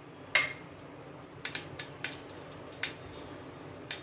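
Mustard seeds starting to pop in hot oil in a steel pot: scattered sharp ticks, about seven in all, the loudest about a third of a second in. The popping is the sign that the oil is hot enough for the tempering.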